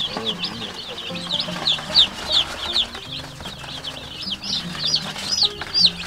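A brooder full of baby Cornish cross meat chicks peeping constantly: many short, high chirps overlapping, several a second.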